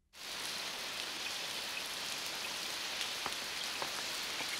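Steady rainfall cuts in suddenly and keeps up an even hiss, with a few single drops ticking now and then.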